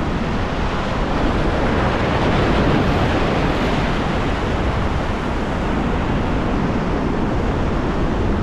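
Ocean surf washing steadily against the shore, with wind rumbling on the microphone.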